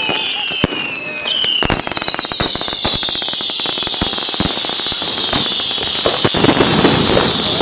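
Consumer fireworks going off in a dense, rapid barrage of bangs and crackle, over a steady high whistle that slowly falls in pitch; a new, higher whistle comes in about two seconds in.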